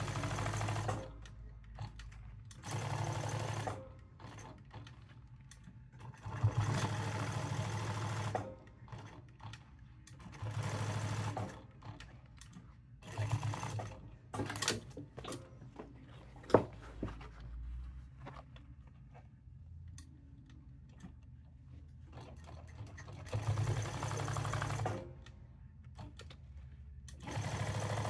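Jack S5 sewing machine stitching leather patches onto hats with the speed turned up, running in about seven short runs of one to two seconds each, stopping between runs while the hat is turned. A longer lull with handling noises falls in the middle, broken by a single sharp knock.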